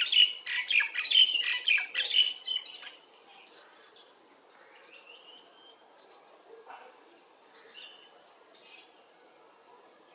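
Birds chirping: a loud burst of rapid, overlapping chirps for about the first three seconds, then only a few scattered quieter calls.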